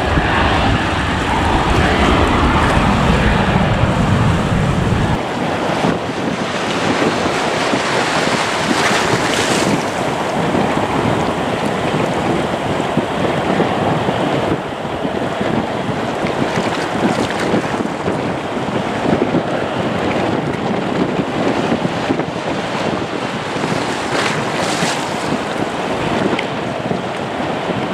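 Wind buffeting the microphone: a heavy low rumble for about the first five seconds that drops away suddenly, then a steady, fluctuating rushing noise.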